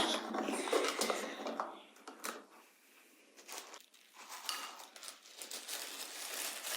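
Hands opening a 3D-printed plastic egg and handling the printed parts inside: small plastic clicks and rustling, with a nearly quiet pause about halfway through.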